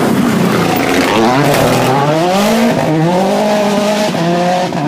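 Rally car engine accelerating hard through the gears: its pitch climbs, drops at a gear change around the middle, climbs again and shifts once more near the end, with a rush of tyre and road noise.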